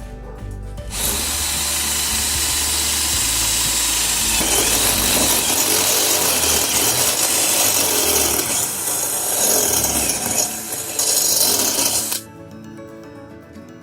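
Hamilton Ultimate cordless drill running under load as it bores into material. It starts about a second in and stops abruptly near the end.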